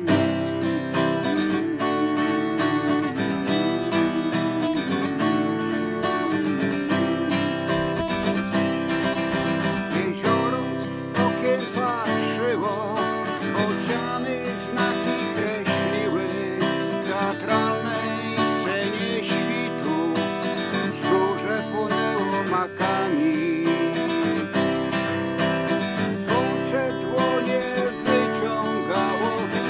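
Acoustic guitar strummed steadily through an instrumental passage between verses of a song.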